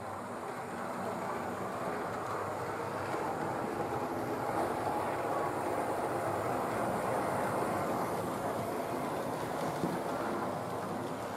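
Model railway locomotive, a model of the LNER W1 No. 10000, running along the track with its coaches: a steady mechanical running noise from its motor and wheels on the rails, growing louder over the first few seconds as it comes close and easing slightly near the end.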